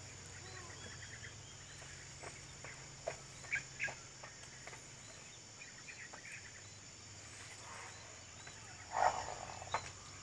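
Insects chirring steadily in a high, continuous drone, with scattered short bird chirps and clicks, and one louder brief call about nine seconds in.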